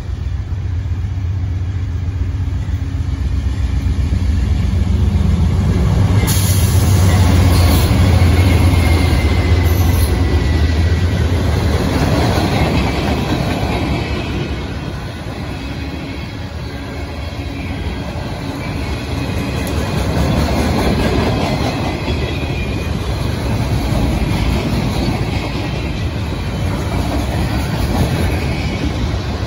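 Diesel freight locomotive passing close by, its engine's low rumble loudest around eight seconds in, followed by a long string of loaded flatcars rolling past with steady wheel-on-rail rumble and clatter that swells and eases.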